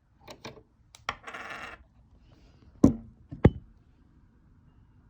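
Small sewing-machine parts being fitted by hand: a few light clicks and a short rattle, then two sharp knocks about half a second apart near the middle.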